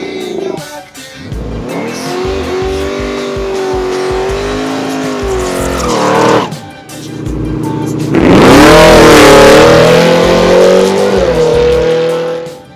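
Drag cars' engines revving hard during burnouts, the pitch wavering as they are held high, with tire squeal. About six and a half seconds in the sound breaks off briefly, then a louder rev climbs steeply and holds high.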